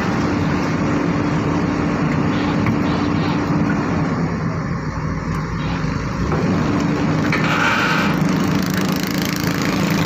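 Excavator-mounted vibratory hammer clamped to a steel sheet pile, vibrating it down into the ground: a steady mechanical drone, mixed with the excavator's engine under load. The drone eases briefly around the middle, then picks back up.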